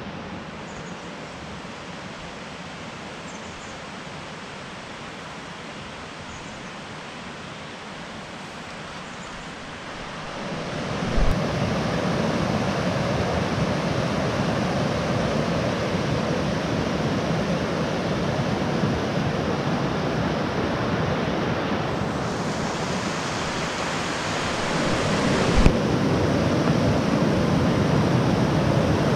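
Fast mountain creek rushing over rocks in a steady whitewater roar. It is softer at first, then much louder and fuller from about a third of the way in as the water is close at hand. Brief knocks come about a third of the way in and again near the end.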